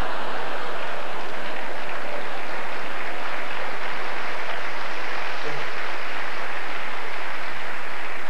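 Stand-up comedy audience applauding, a steady burst of clapping that lasts several seconds.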